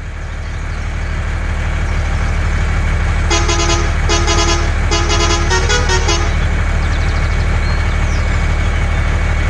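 Truck engine running with a steady low rumble that builds up over the first couple of seconds. From about three to six seconds in, a horn sounds several toots in quick succession.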